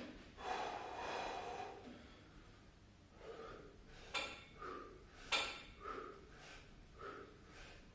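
A man breathing hard from the exertion of a bodyweight workout set, in quick rhythmic puffs about one and a half a second. There is a longer breath near the start and two sharper snorts near the middle.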